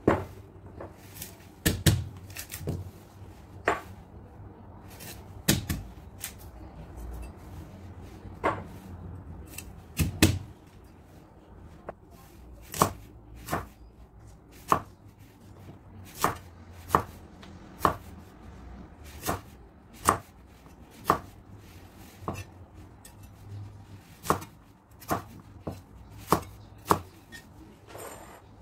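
Cleaver chopping on a wooden cutting board in separate sharp knocks: spaced well apart at first while cutting through corn on the cob, then coming closer together, about one a second or faster, while cutting onions.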